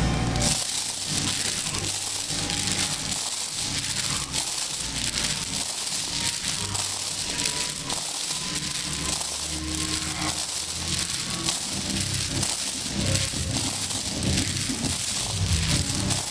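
Heavy steel chains hung over the shoulders clinking and rattling through a set of push-ups. The links shift against each other and against the pile heaped on the floor mat with each rep.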